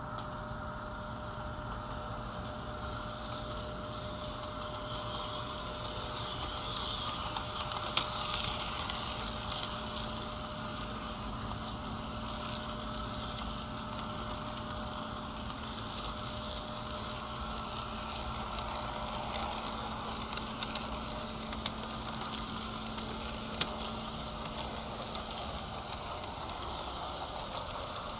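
HO-scale Auscision Tangara model train running on the layout track: a steady hum with rolling noise, and two sharp clicks, one about a third of the way in and one near the end.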